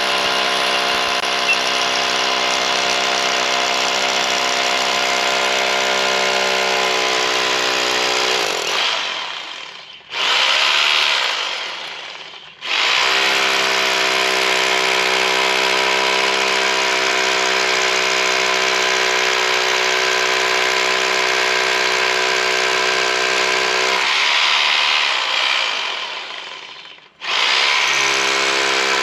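Bauer 4-in-1 hammer drill drilling a guide hole through a wall, its motor running at a steady pitch. It runs in long stretches, slows to a stop about 8 s and 24 s in, and starts again each time.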